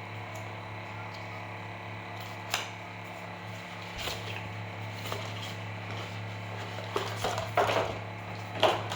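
Apple Watch packaging being handled and opened: a sharp click about two and a half seconds in, a few light ticks, then a run of scraping and rustling near the end, over a steady electrical hum.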